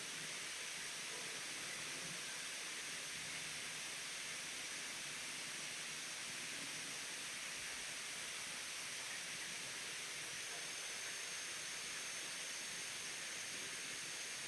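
Steady hiss of an Apple iPad's microphone noise floor, its recording self-noise with nothing else sounding. A faint thin high tone joins about ten seconds in.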